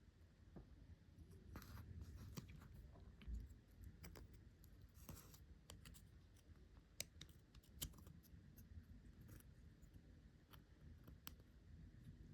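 Faint, scattered small clicks and brief scrapes of small hardware being handled, with no steady sound between them.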